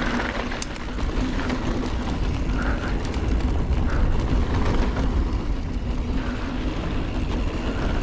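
Mountain bike riding fast down a dirt trail: wind rumbling over the GoPro's microphone, tyres on loose dirt, and scattered clicks and rattles from the bike.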